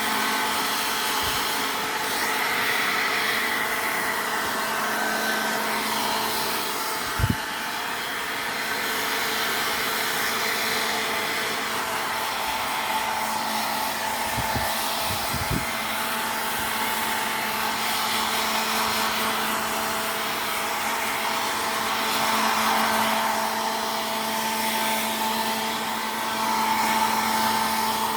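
Water running steadily from a tap or shower during a kitten's bath, a rushing hiss with a steady hum under it. A single knock comes about seven seconds in, and a couple of dull bumps about halfway through.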